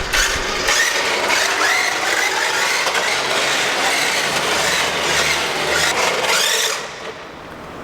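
Cheap 1:10 four-wheel-drive electric RC drift car driving: its single motor and gear drive whine, rising and falling with the throttle, over a steady rasping hiss. It eases off near the end, with the drivetrain in working order.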